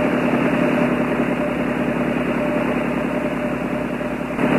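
Steady radio hiss with a faint hum underneath, on an air traffic control radio channel with no one talking.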